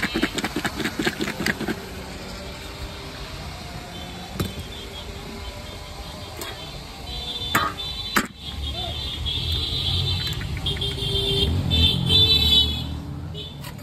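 Street traffic: a motor vehicle passes with a low rumble and a long, high horn-like tone, loudest about twelve seconds in. Earlier there is rapid rattling knocking in the first two seconds and a few sharp knocks.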